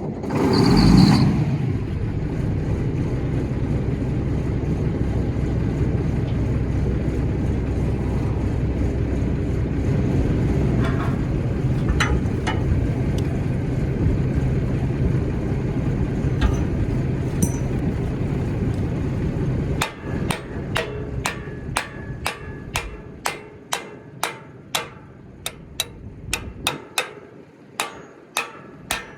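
A steady machine runs for about twenty seconds, then stops, and a hammer strikes metal again and again, about two blows a second.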